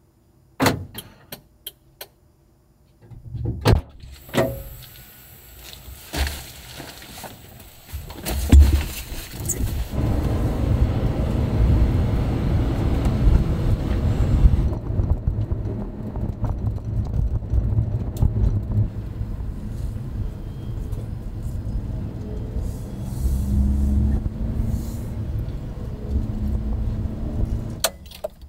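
A few sharp clicks and knocks, then a Suzuki Carry kei truck's small engine and road noise heard from inside the cab while driving: a steady low rumble that cuts off near the end.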